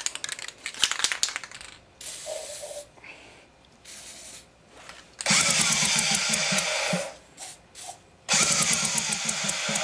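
A short hiss from an aerosol spray can, then an old outboard engine turned over twice with its spark plugs out, about a second and a half each time. The cranking clears the intake cleaner and tri-flow sprayed into the cylinders.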